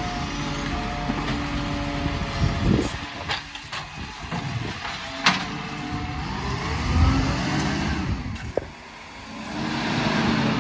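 Automated side-loader garbage truck emptying a wheelie bin. The lifting arm whines steadily as it holds the bin over the hopper, and there are several sharp bangs as the bin is shaken out and set back down. Then the truck's diesel engine revs up with a rising pitch as it pulls away.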